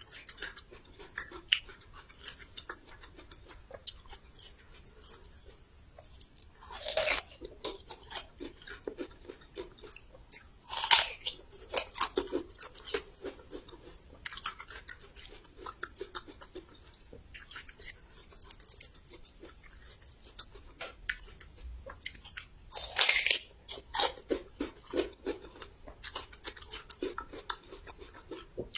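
Close-miked crunching and chewing of raw young ginger: three loud crisp bites, about seven, eleven and twenty-three seconds in, with steady crunchy chewing between them.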